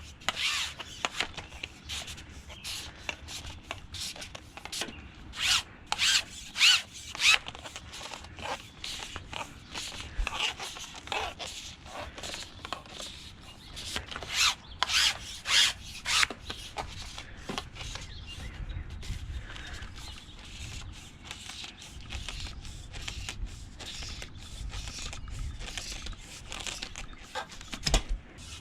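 Telescopic water-fed pole sections sliding and rubbing against one another as the pole is taken apart, in a series of short scraping strokes. The strokes are loudest about five to seven seconds in and again around fifteen seconds, and are quieter later.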